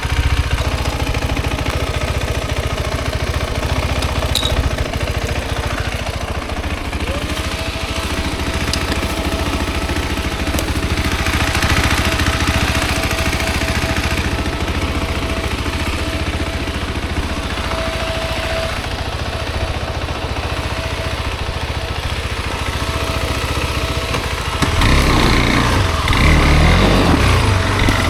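Single-cylinder dirt-bike engine running steadily, with a thin steady whine joining after about seven seconds; it gets louder and rougher near the end.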